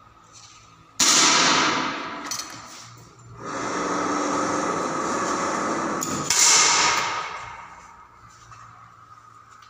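Air rifle shots on an indoor range: two sharp reports, about a second in and about six seconds in, each trailing off over a second or two. Between them, a steady rushing noise lasts a few seconds.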